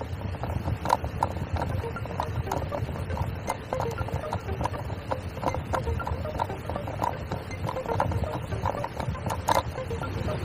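Bicycle riding on asphalt: a steady low wind and tyre rumble on the bike-mounted microphone, with irregular light clicks and rattles from the bike and one sharper click about nine and a half seconds in.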